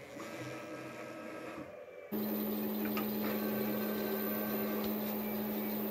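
About two seconds in, the upgraded lathe's electronics and motor drives switch on, and a steady electrical hum with a thin high whine starts and holds, with a couple of light ticks soon after.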